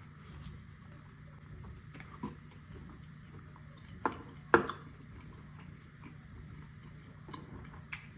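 Scattered soft clicks and smacks of someone eating barbecue ribs, a few at a time with the loudest about four and a half seconds in, over a steady low hum.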